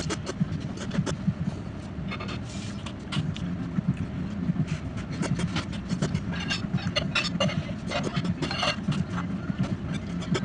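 Ramen noodles being slurped and eaten in repeated short bursts, over a steady low hum.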